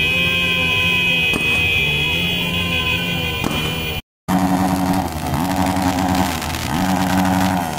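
Motorcycle engines running and revving, pitch dipping and climbing again twice in the second half, with a short silent break about four seconds in.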